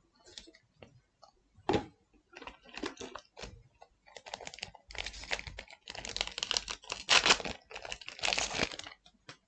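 Booster pack wrapper being crumpled and torn by hand: a run of irregular crinkling crackles that gets busier and louder about halfway through.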